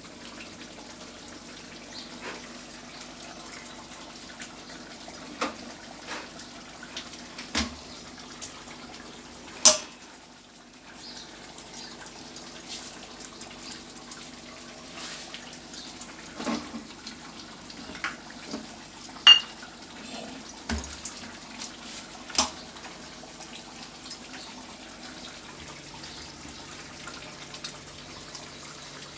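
Scattered clinks and knocks of steel kitchenware being handled, over a steady low hum, with some watery sounds.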